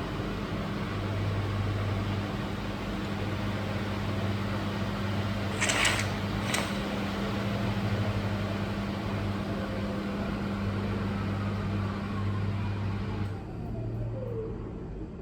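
Miele W1 Professional washing machine spinning its drum with a steady motor hum and a broad rushing noise, with two sharp clicks about halfway through. Near the end the motor whine falls in pitch and the rushing noise cuts out suddenly as the spin winds down.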